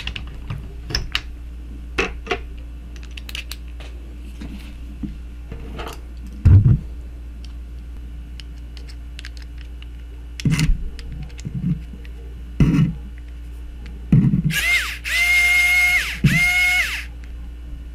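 Small clicks and knocks of steel bits being handled in a plastic bit case, then a PKEY mini electric screwdriver's motor whirring in two short runs as it drives a tiny sunglasses hinge screw. Each whine rises briefly and then holds steady.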